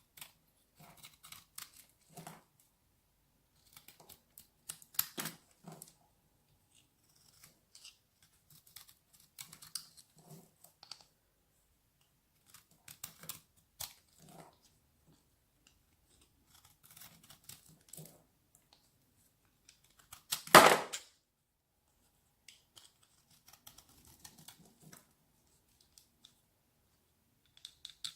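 A knife cutting into a bar of dry, hard soap: short bursts of crisp crackling and scraping with quiet gaps between, one much louder cut about two-thirds of the way through.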